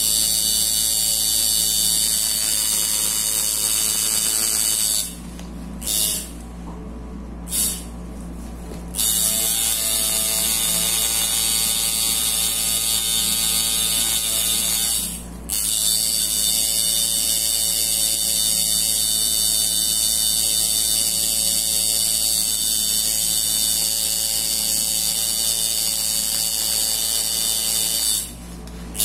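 Coil tattoo machine buzzing steadily while shading on artificial practice skin. It stops about five seconds in, gives a brief burst, and runs again a few seconds later. It pauses briefly in the middle and cuts off just before the end.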